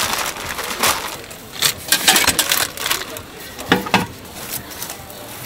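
Plastic bags crinkling and rustling as they are handled, with scattered clicks. About four seconds in comes a sharp metal clank with a brief ring from a large stainless steel stockpot and its lid.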